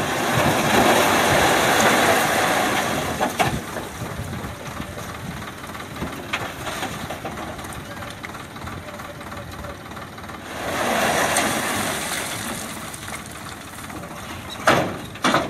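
Sonalika DI 47 RX tractor's diesel engine running while its raised tipping trailer dumps a load of stones and mud, with two swells of louder noise, one in the opening seconds and one about ten seconds in. Two sharp knocks near the end.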